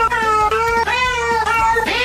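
Cat meowing in a quick run of short, steady-pitched notes, several within two seconds, with music underneath.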